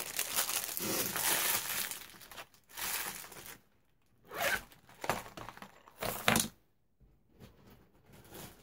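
A craft-supply bag or packaging crinkling and rustling as it is handled: one continuous rustle for the first two and a half seconds, then several short crinkles, fainter toward the end.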